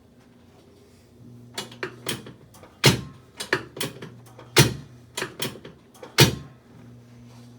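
A series of about a dozen sharp clicks and knocks over about five seconds, three of them much louder than the rest, made during a chiropractic adjustment.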